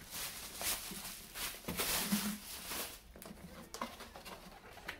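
Foam packing wrap rustling and scraping as it is pulled off a plastic LED tail light housing, in a run of strokes for about three seconds, then fainter handling with a few light clicks.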